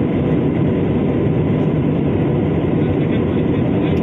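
Steady roar of a jet airliner's engines and airflow, heard from inside the passenger cabin in flight.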